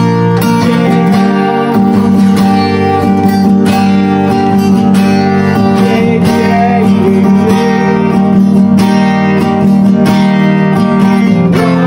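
Steel-string acoustic guitar strummed in a steady rhythm, with a man singing a kirtan chant over it.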